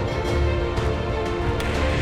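Background music: sustained instrumental notes over a steady low beat.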